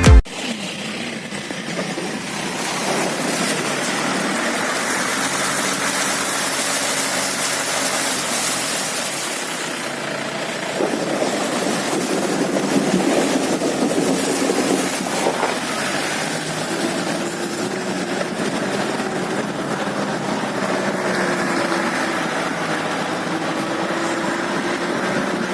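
A motor vehicle's engine running steadily, with a wide hiss of travel noise over it.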